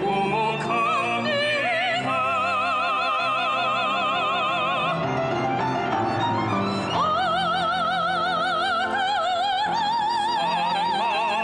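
A Korean ballad-style song with orchestral accompaniment: long notes held with wide vibrato, one sliding up into a held note about seven seconds in.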